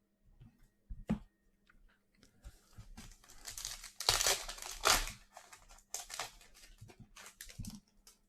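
Foil wrapper of a Donruss basketball card pack being torn open and crinkled, loudest about four to five seconds in, after a short knock about a second in.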